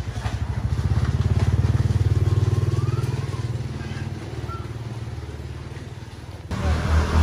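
A small engine running with a fast, even low pulse. It grows louder about a second in and eases off after a few seconds; near the end an abrupt cut brings in another loud stretch of the same kind of engine sound.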